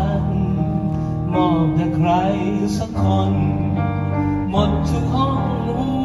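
Live band playing a song: a singer's wavering, held notes over keyboard and bass.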